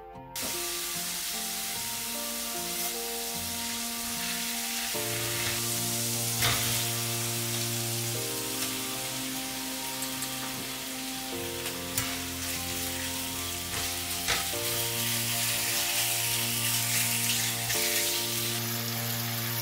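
Minced garlic, then bacon and Vienna sausages, sizzling in hot oil in a nonstick frying pan. The sizzle starts suddenly about half a second in, with a few sharp clicks from the spatula. Steady background music plays underneath.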